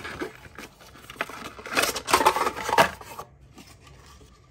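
Handling noise from plastic toy packaging: irregular clicks and crinkling as a clear plastic blister tray is handled and pulled free. The noise is busiest around the middle and dies away after about three seconds.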